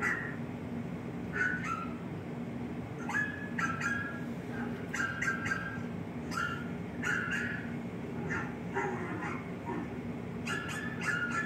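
Dogs barking and yipping, played back from a video, in short, irregular calls about every second or so. A steady low hum runs underneath.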